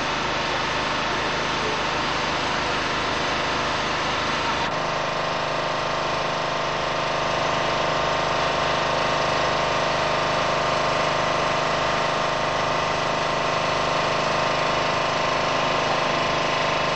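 Small engine running steadily at a constant speed, a continuous hum with several held tones. About five seconds in the tones shift slightly and it gets a little louder.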